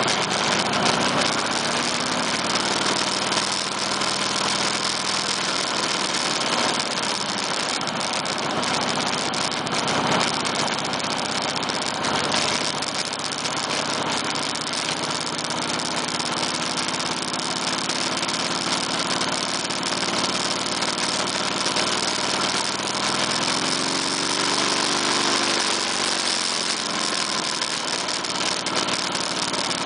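Motorcycle engines running at low speed in a slow procession, a steady drone, with one engine's pitch rising and falling about three quarters of the way through.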